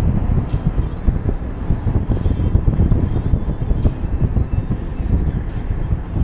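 Car being driven: a steady low rumble of road, engine and wind noise.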